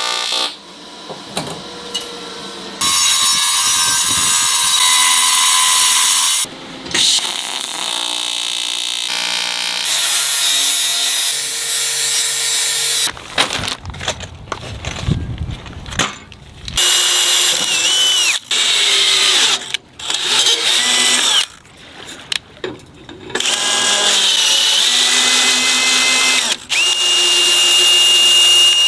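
Power drill running in a series of short runs, starting and stopping, while holes are drilled and tapped in an aluminium bracket; near the end the motor whine rises and holds steady. At the start, the steady buzz of an electric welding arc.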